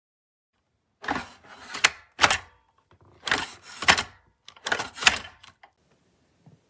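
A series of knocks and clunks in four or five short clattering bursts, about a second apart.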